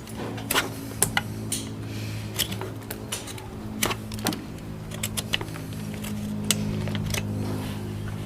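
Irregular sharp clicks and taps of farrier's tools working on a horse's hoof and shoe, over a steady low hum.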